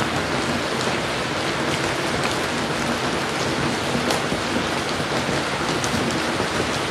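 Steady rain falling, an even hiss with scattered drops ticking through it.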